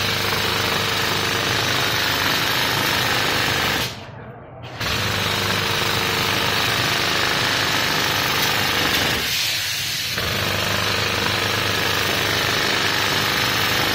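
Hand tufting gun running, its needle rapidly punching yarn through the backing cloth in a fast, steady mechanical clatter. It stops for about a second around four seconds in, then starts again, easing briefly near ten seconds.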